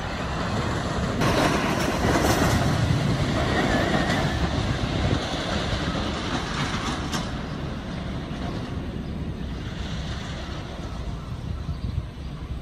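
A train on the Blue Streak wooden roller coaster rumbling and clattering along its track over the hills. It gets louder about a second in, then fades as it runs away.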